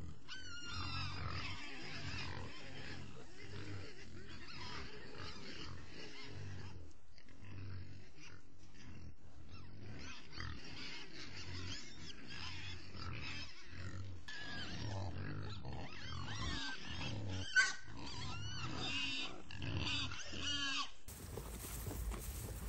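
A sounder of feral hogs penned in a corral trap, grunting low and squealing often, heard through a trap camera's microphone. One sharp knock stands out about three-quarters of the way through.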